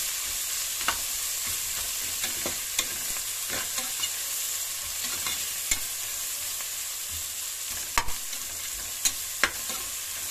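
Sliced onions and whole spices sizzling in hot oil and ghee in a pressure cooker as they fry toward browning, with a ladle stirring and scraping through them. Now and then the ladle knocks sharply on the pot, loudest about eight seconds in and twice more a second or so later.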